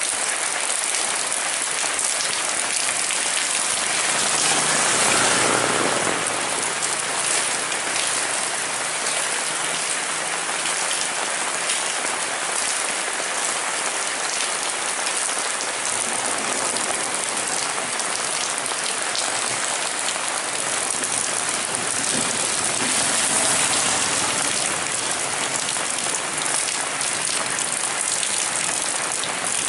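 Heavy rain falling steadily as a dense hiss of drops. The downpour swells louder for a couple of seconds about five seconds in, and a little again past the twenty-second mark.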